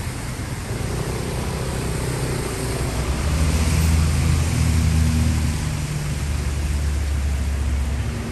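Street traffic passing on a wet road: cars and motorcycles running by with a steady hiss. A low engine rumble grows louder about three seconds in and eases off a few seconds later.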